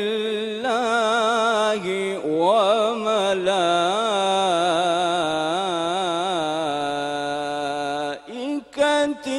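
A man reciting the Quran in a melodic tajweed style. His solo voice draws out one long ornamented phrase with a wavering pitch for several seconds, then breaks off for a breath about eight seconds in and starts the next phrase.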